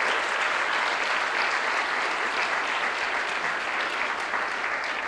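Audience applauding, a dense steady clapping that eases off gradually toward the end.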